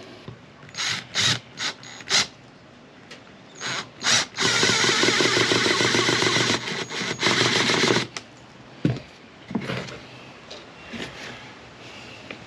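Cordless impact driver sinking a pocket screw into a pine board: a few short blips of the trigger, then one steady run of about three and a half seconds that stops about eight seconds in. A single sharp click follows.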